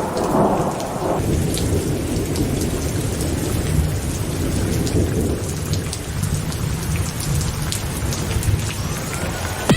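Thunderstorm: steady heavy rain with rumbling thunder, the rumble strongest in the first second. A faint rising tone comes in near the end.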